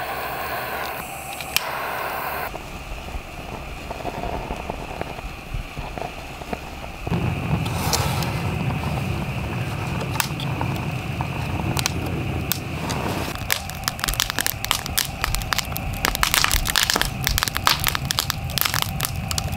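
A slotted-log wood stove stuffed with fire starter catching fire after a couple of clicks of a torch lighter near the start. A low rush of flame sets in about a third of the way in, with crackling and popping that grows denser toward the end, like firecrackers going off inside the log.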